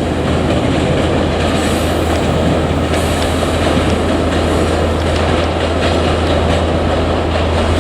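JR Kyushu 817 series electric multiple unit running by on the rails: a loud, steady rumble of wheels and running gear with a strong low hum and faint ticks.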